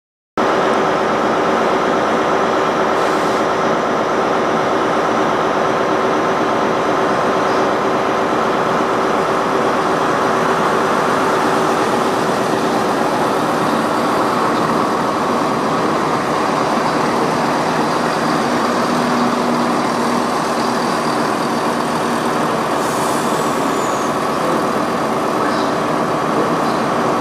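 CrossCountry Class 170 Turbostar diesel multiple unit running slowly alongside the platform, its underfloor diesel engines and transmission giving a steady hum with a rumble of wheels on track.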